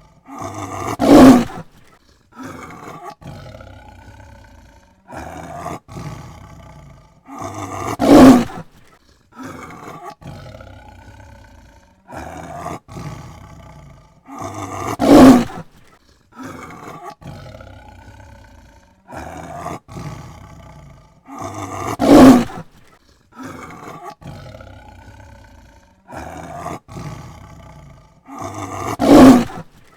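Tiger roaring: a loud, deep roar about every seven seconds, five in all, with quieter calls in between.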